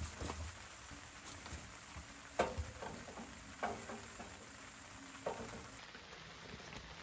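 A few light metallic clinks and knocks from an aluminium camp kettle handled on the wire grate of a Coleman Dual Fuel camp stove, over a steady faint hiss.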